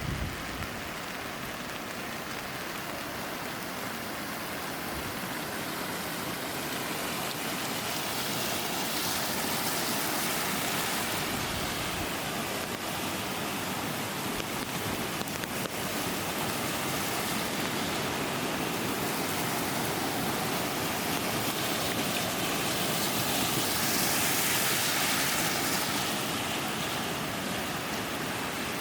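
Steady rush of flowing and falling water, swelling twice: about ten seconds in and again a few seconds before the end.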